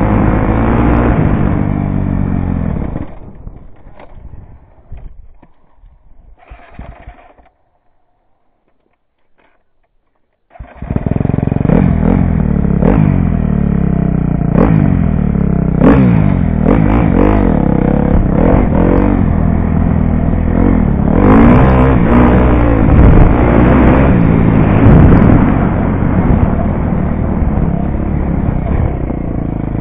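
2012 KTM 250 SX-F single-cylinder four-stroke dirt bike engine revving up and down while riding a dirt trail. The engine sound drops away about three seconds in and is near silent for a few seconds. About ten seconds in it cuts back in abruptly and keeps revving up and down through the gears.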